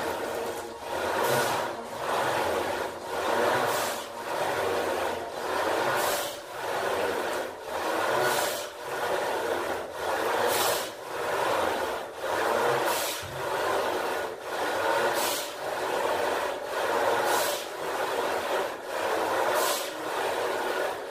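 A man breathing hard in a steady rhythm through a set of barbell squats, a loud rushing breath about every second with a sharper hissing exhale roughly every two seconds.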